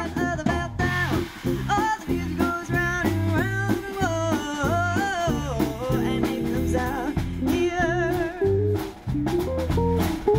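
Live swing band playing, with drum kit and bass guitar under a woman singing into a microphone.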